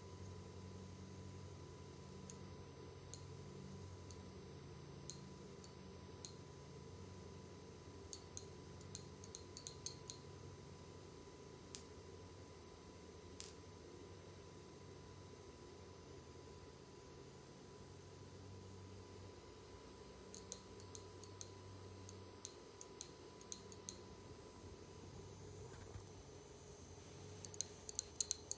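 Piezo disc driven by an ultrasonic driver, giving a loud, very high-pitched whine that cuts out and comes back again and again as its drive is pulsed off and on, sometimes in quick runs of short blips. Near the start the pitch slides down a little and settles.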